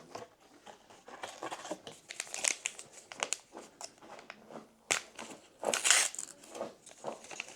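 Foil trading-card booster pack being handled and torn open, with irregular crinkling and a louder tear about six seconds in.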